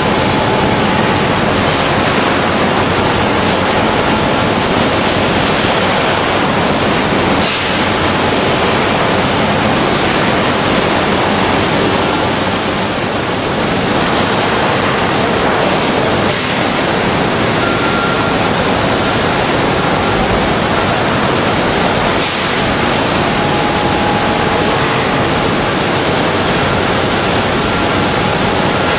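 Continuous loud rushing roar of a foundry's magnesium wire treatment station for ductile iron, with three faint sharp knocks spread through it.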